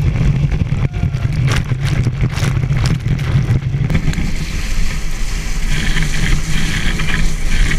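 Rush of water spray and wind on an action camera skimming the lake surface behind a tow boat, with the boat's engine drone under it. About four seconds in the low drone drops away and a hissing spray takes over.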